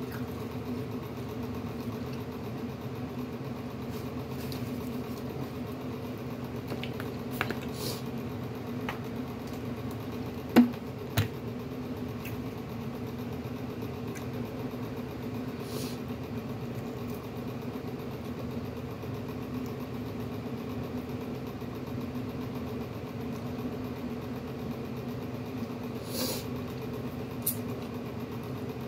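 A steady low hum runs throughout, with scattered faint crackles and ticks of shrimp shells being peeled by hand over a plastic bag. Two sharp clicks come about ten and eleven seconds in.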